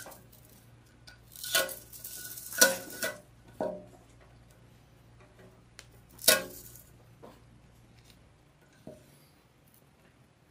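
Clattering knocks from a resin printer vat being handled as adhesive heater tape is pressed along its edge: a cluster of sharp knocks between about one and a half and three and a half seconds in, and one more a little after six seconds.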